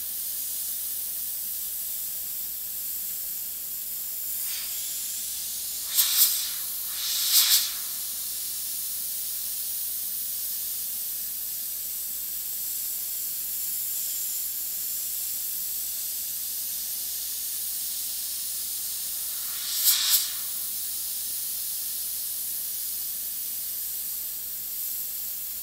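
Iwata HP-CS Eclipse gravity-feed airbrush spraying opaque yellow paint: a steady high air hiss, with three brief louder spurts of spray about six, seven and a half, and twenty seconds in.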